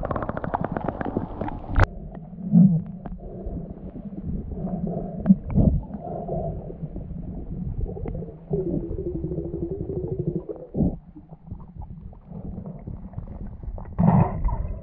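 Muffled underwater rumble of fast-flowing river water and bubbles heard through a submerged camera, with scattered knocks and a louder burst near the end.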